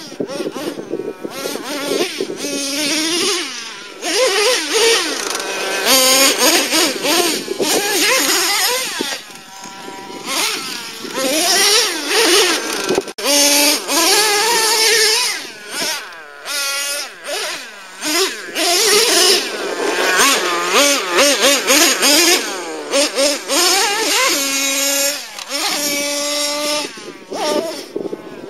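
Traxxas T-Maxx nitro RC truck's modified 3.3 two-stroke glow engine with a drilled-out resonator pipe, revving up and down over and over as it is driven, with a few short spells of steady high-pitched running.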